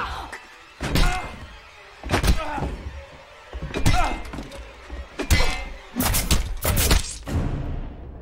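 A run of hard impacts, about five in all and roughly a second or so apart, with a woman's screaming between them.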